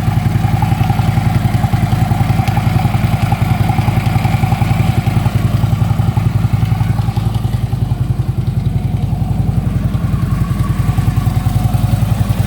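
Harley-Davidson Ultra Limited V-twin idling steadily, with a slight knocking from the lower end that a newly fitted compensator has not cured.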